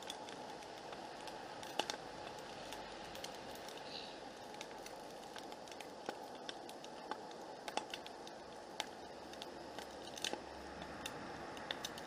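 Egg frying in oil in a stainless steel fry pan on a backpacking gas stove: a faint steady sizzle with scattered crackles and pops.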